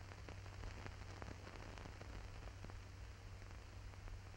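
Faint hiss of an old film soundtrack with scattered crackles and pops over a steady low hum; no other sound.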